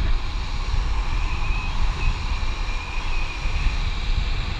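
Steady rush of wind buffeting the camera microphone over the roll of longboard wheels on asphalt at downhill speed.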